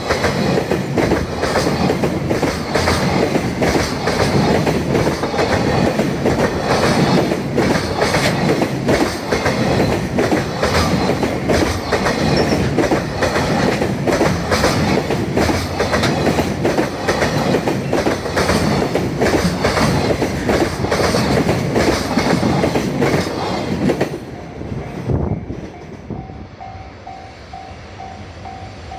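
Freight train rolling past close by, its wagons' wheels clattering over the rail joints in quick knocks, fading away about 25 seconds in. After it passes, a level-crossing warning bell rings in an even, repeating beep.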